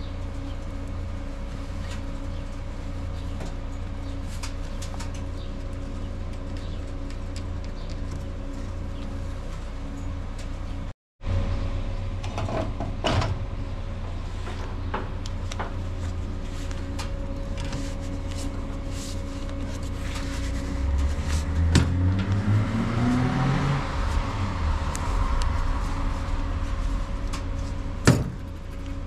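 Clicks and knocks of a CNG refuelling nozzle being handled and coupled onto a bus's gas filler receptacle, ending in a sharp click near the end as it locks on. Under it runs a steady low hum, with a rising engine note partway through.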